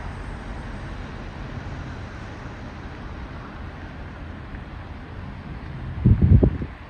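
Steady outdoor rushing noise, with a brief loud buffet of wind on the microphone about six seconds in.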